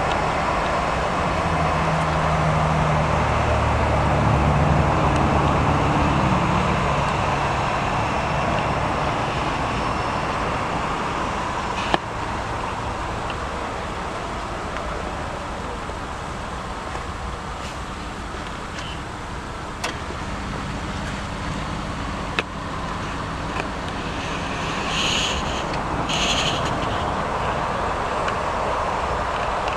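Boeing 737-700's CFM56 jet engines running at taxi power: a steady rushing drone with a low hum that fades out and comes back. A few sharp clicks break it.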